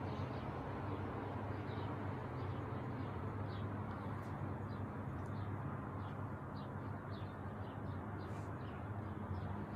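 Small birds chirping in short, quick notes again and again over a steady low background hum.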